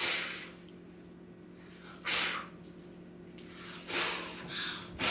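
Several short puffs of breath blowing out birthday candles, spaced about two seconds apart and closer together near the end.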